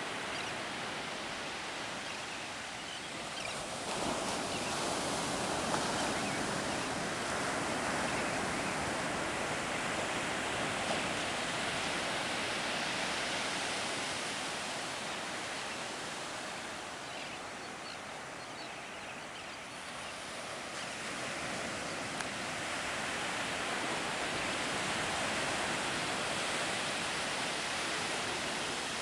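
Ocean surf breaking and washing up a sandy beach, a continuous rush that swells about four seconds in, eases in the middle and builds again after twenty seconds.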